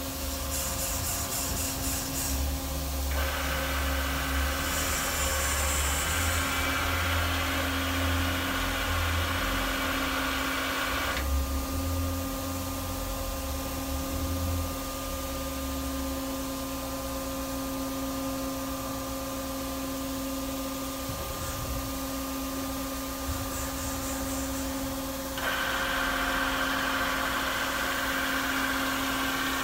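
Daewoo Puma 2500LM CNC turn-mill centre running with a steady hum. Two stretches of louder whirring come over it, from about three to eleven seconds in and again near the end, as the turret traverses its axes.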